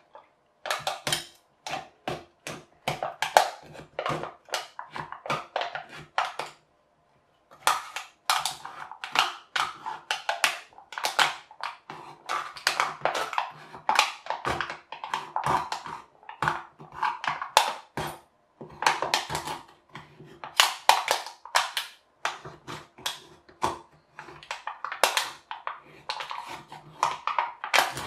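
Cheap retractable-blade knife slicing through the thin aluminium wall of a drinks can: a long run of short scraping clicks in quick clusters, with a pause about seven seconds in.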